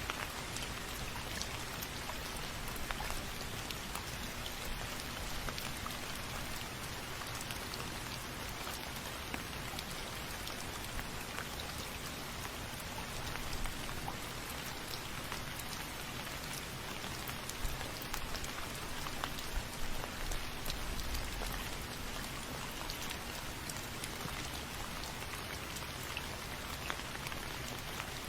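Steady rain falling and pattering on a surface, with many small individual drop ticks over an even hiss.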